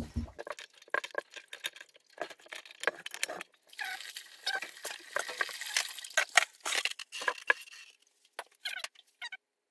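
Tubing cutter being turned around a copper water pipe: a run of irregular metal clicks and scraping, denser and hissing for a few seconds in the middle.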